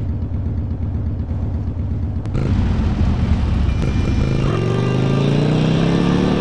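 Harley-Davidson V-twin motorcycle engine idling with a fast low pulse, then revving up, its pitch rising steadily over the last two seconds.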